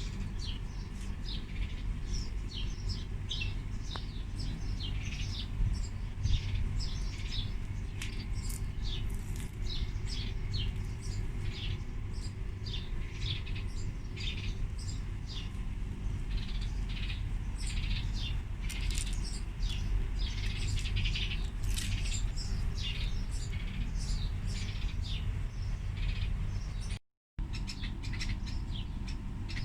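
Small birds chirping rapidly and continually, many short high notes overlapping, over a steady low rumble. The sound drops out completely for a fraction of a second near the end.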